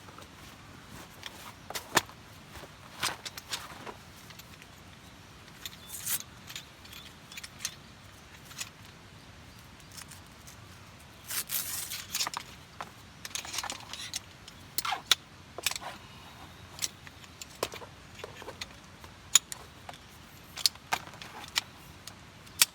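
Camping gear being handled: scattered small metallic clinks and rattles with rustling, irregular and with no steady rhythm.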